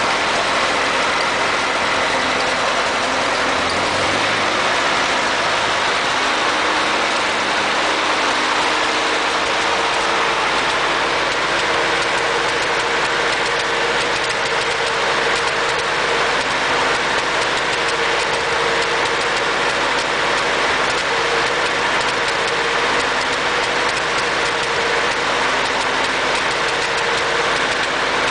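Ford 8N tractor's four-cylinder flathead engine running with a skip or misfire, which the owner cannot yet pin on the carburettor or the distributor. Its pitch shifts about four seconds in, then holds steady.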